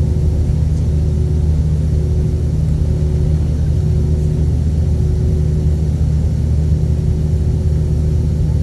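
Airbus A320-232 cabin noise inside the cabin: the steady low rumble of its IAE V2500 jet engines with a faint hum that pulses about once a second.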